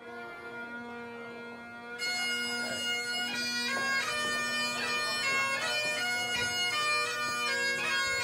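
Bagpipe music: the drones sound alone at first, then the chanter melody comes in about two seconds in and plays over the steady drones.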